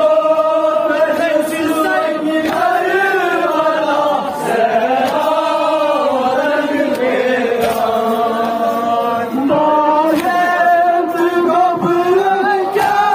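Male voices chanting a Shia noha (mourning lament) in a slow, drawn-out melody, amplified through microphones and a horn loudspeaker. A few sharp slaps from chest-beating (matam) stand out here and there.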